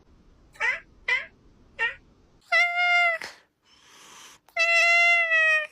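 Domestic cat calling: three short, quick mews that fall in pitch, then two drawn-out meows, the second the longest.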